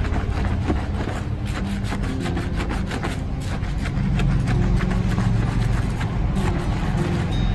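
Hands scrubbing a shampoo-lathered scalp: wet squelching of the foam with many small crackles, over a steady low rumble.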